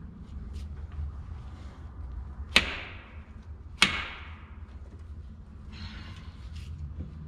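Two sharp knocks of metal on metal, about a second apart, each ringing briefly, from work on a Detroit Diesel 6-71 being assembled. A steady low hum runs underneath.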